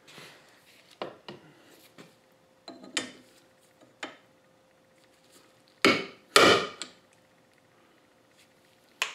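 Small clicks and knocks of metal tools being handled and set in place, then a loud hammer blow on an aluminium seal driver, with a second loud knock just after, tapping a shaft seal back down into the bore of a Ford power steering gearbox.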